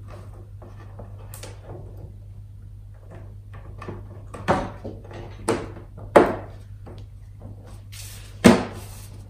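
All-in-one computer's display panel being handled and set down into its frame: light rubbing and handling noise, then four sharp knocks over about four seconds as the panel edges are pressed into place, the last two the loudest. A steady low hum runs underneath.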